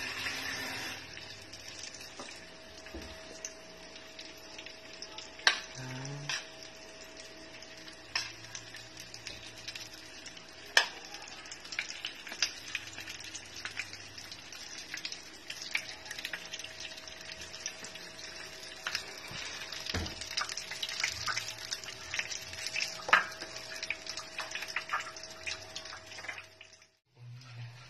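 Breaded eggplant-and-tuna patties frying in oil in a pan: a steady sizzling hiss with scattered crackles and a few sharp pops of spitting oil.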